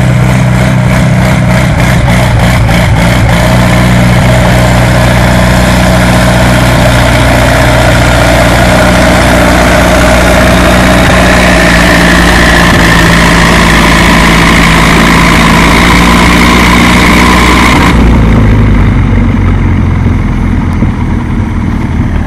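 Farmall M pulling tractor's engine running at full throttle under load, loud and steady. About three-quarters of the way through it drops abruptly to a lower, quieter running as the throttle comes off.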